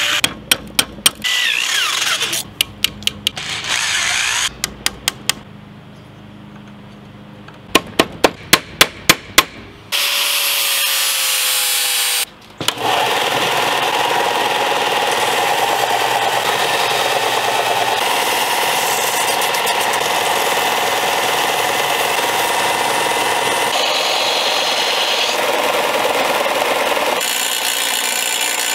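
A run of sharp taps and knocks in quick clusters, then a Ryobi 4 x 36 inch belt sander running steadily as a knife is ground against its belt.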